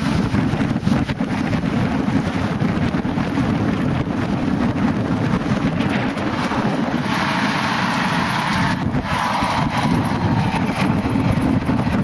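Wind buffeting the microphone: a steady low rumble with no break.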